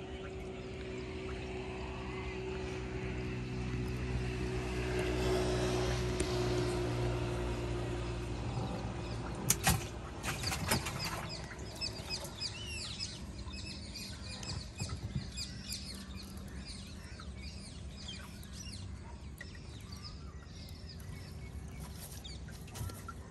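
A motor vehicle's engine hum swells and fades, like a vehicle passing. About ten seconds in come a few sharp knocks, and then small birds chirp in quick repeated calls.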